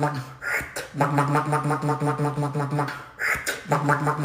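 Beatboxing: a hummed, pitched bass buzz pulsing about seven times a second, broken every two seconds or so by a short hissing snare-like burst, in a repeating pattern.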